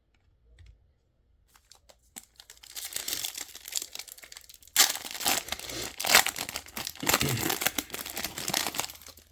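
A trading-card pack wrapper being torn open and crinkled by hand. The crackling starts a couple of seconds in and grows louder, with a sharp rip about five seconds in.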